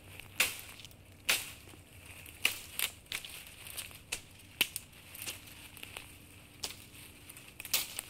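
Footsteps walking through brush, the undergrowth crunching and crackling underfoot in irregular steps about a second apart, with smaller crackles between them.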